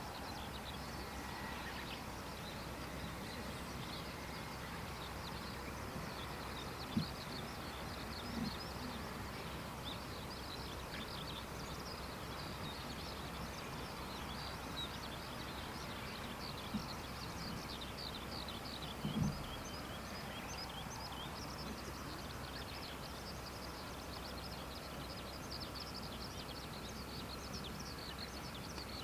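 Many small birds chirping over a steady outdoor background hum, with a few soft low thuds, the loudest about two-thirds of the way through.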